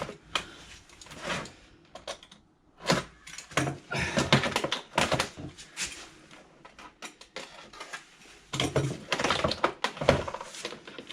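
A retractable knife cutting packing tape on a cardboard box, with irregular scratchy clicks and scrapes as the blade and the box are worked.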